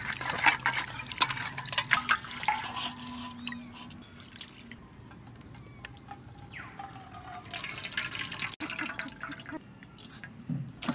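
Water poured over a piece of chital fish in a stainless steel bowl, splashing as hands rub and rinse the fish, loudest in the first couple of seconds, then lighter drips and trickles as the fish is lifted out.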